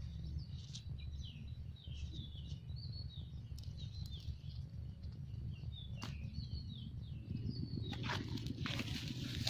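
Small birds chirping repeatedly in short, quick notes over a steady low rumble. Grass rustles close by near the end.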